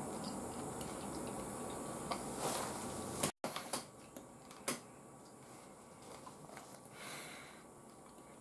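Close-up mouth sounds of a man chewing soft grilled eel, with a few light clicks of chopsticks against the plate. The sound cuts out for an instant about a third of the way through and is quieter afterwards.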